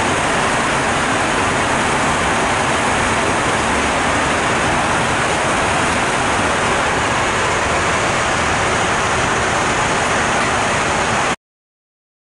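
Steady cabin noise of a jet airliner in flight, an even rushing hiss with no distinct events. It breaks off to silence near the end.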